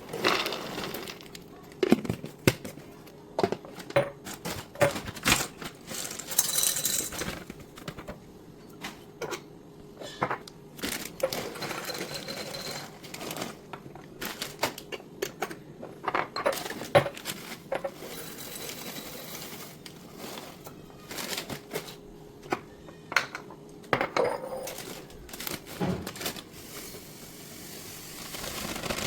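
Kitchen handling sounds: an irregular string of small clinks and knocks as containers are picked up and set down, with a few short stretches of rustling.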